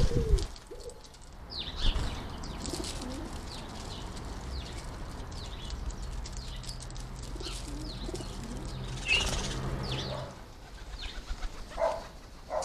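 Wild garden birds chirping and tweeting in short high calls, with a pigeon cooing low in the first couple of seconds. A steady low hum runs under the middle of it.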